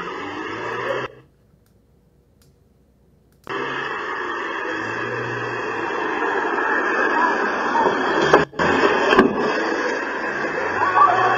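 Steady hiss from the low-quality microphone of a home surveillance camera. The hiss cuts out for about two seconds near the start, and there is a sharp click about nine seconds in.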